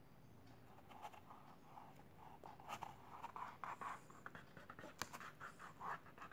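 Faint rubbing of fingertips smearing wet acrylic paint on stiff painting paper, in short uneven strokes starting about a second in, with a few light taps.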